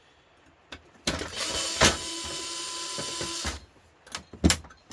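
A small power tool, like a cordless drill-driver, runs steadily with a whine for about two and a half seconds while the grill's screws are worked on. It is followed by a few sharp clicks of metal parts.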